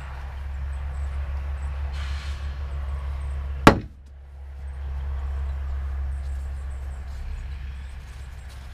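A thrown golf ball strikes the glass face of a 60-cell polycrystalline solar panel once, a single sharp crack a little under four seconds in, over a steady low rumble. The panel takes the hit without damage.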